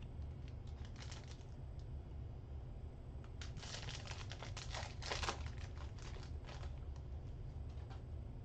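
Foil wrapper of a Select football trading-card pack being torn open and crinkled, with the cards clicking as they are handled. The crackling comes in a brief patch about a second in and is thickest between about three and a half and five and a half seconds in, over a low steady hum.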